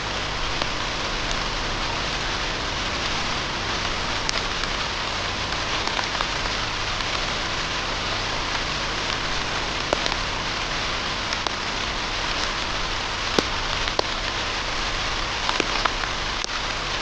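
Steady rain falling, with a few sharper individual drops ticking close to the microphone now and then.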